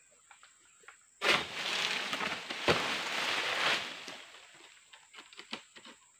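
A cut oil palm frond crashing down through the palm's leaves: a sudden loud crackling rustle about a second in, with one sharp knock partway through, fading out over the next couple of seconds.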